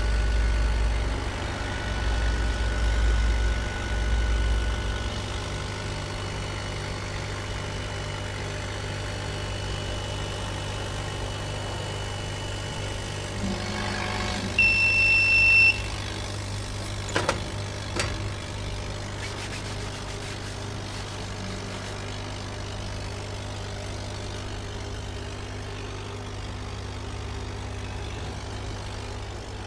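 A 60 W CO2 laser engraver running with a steady hum, its head moving in low rumbling bursts for the first few seconds. About halfway a single electronic beep sounds, then a couple of sharp knocks.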